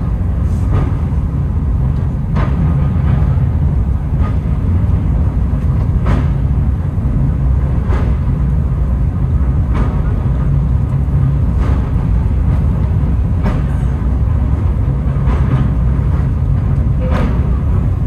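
Takao Tozan Railway cable car running downhill through a tunnel, heard from on board: a steady low rumble with a sharp click about every two seconds.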